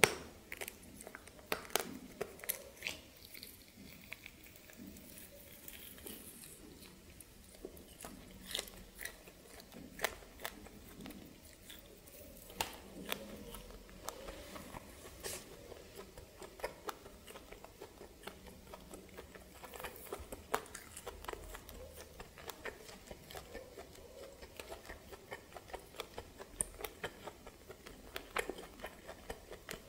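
A person biting and chewing steamed snake: irregular crunching bites and wet chewing clicks, with one sharp loud crunch at the start.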